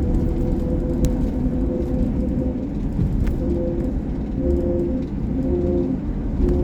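2004 Jeep Grand Cherokee driving, heard from inside the cabin: a steady low rumble of engine and road with a hum whose pitch changes partway through, and two brief clicks.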